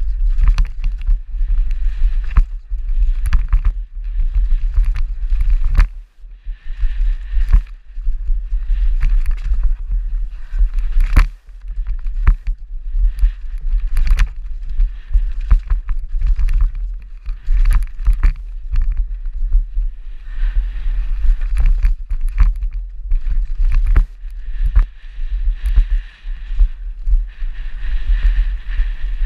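Downhill mountain bike ridden fast down a rocky trail: heavy wind buffeting on the on-bike camera's microphone with many sharp knocks and rattles from the bike hitting rocks, and stretches of higher hiss from the tyres on loose dirt.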